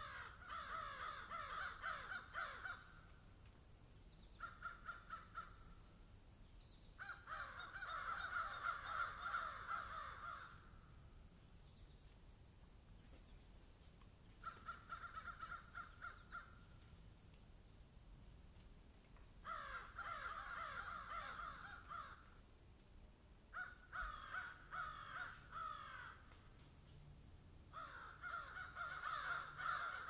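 Crows cawing in about seven separate bursts of fast, repeated calls, each burst one to three seconds long, with short pauses between them.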